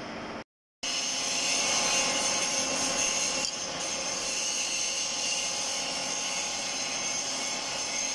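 Milling machine running steadily with a high whine from its gears and spindle while a form cutter mills the thread of a steel worm shaft. The sound drops out briefly just after the start.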